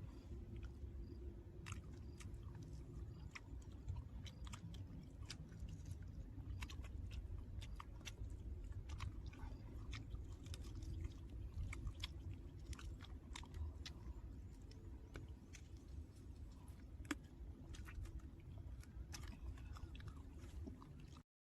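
A person chewing and eating: irregular small clicks and smacks of mouth and food, over a low hum. It cuts off abruptly just before the end.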